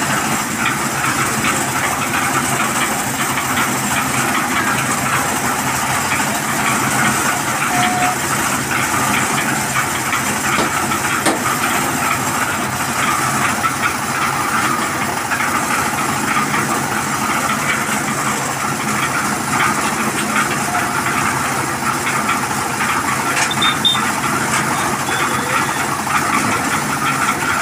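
Kirloskar 15 HP diesel engine running steadily, driving a concrete mixer machine.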